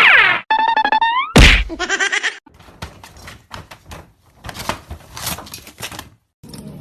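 A loud thunk about a second and a half in, between short pitched sounds that glide down and then up, followed by a few seconds of faint, scattered clicks and knocks.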